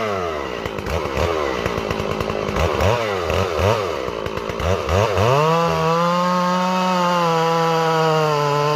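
Large chainsaw working on a big red oak log: the engine pitch rises and falls quickly for about five seconds, then holds steady at high revs.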